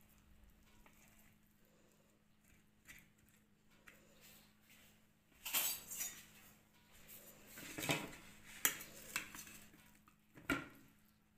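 Metal knife and serving spatula scraping and clinking against a ceramic plate while an omelet is cut and a slice is lifted, in a few short bursts in the second half.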